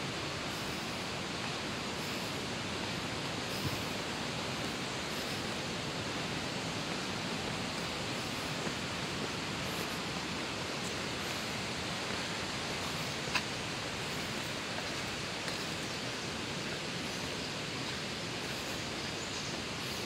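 Steady, even rushing noise of outdoor ambience, with a few faint ticks.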